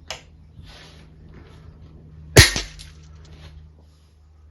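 A single shot from an Anschütz 9015 HP sub-12 ft-lb pre-charged air rifle, a sharp crack about two and a half seconds in.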